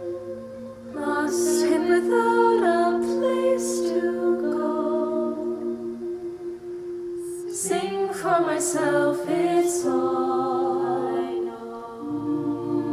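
Mixed-voice high school choir singing a cappella in harmony: held chords with sung phrases moving over them, starting about a second in and again near the middle.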